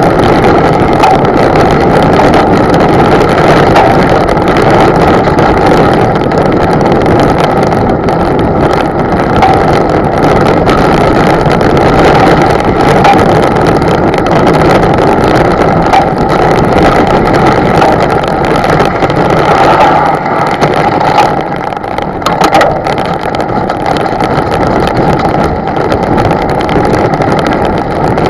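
Loud, steady rushing of wind on the microphone while moving, with a faint hum under it.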